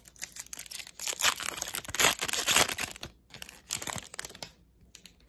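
Foil trading-card pack wrapper crinkling and tearing as it is ripped open and handled, in uneven fits, loudest in the middle, with a short break and stopping about four and a half seconds in.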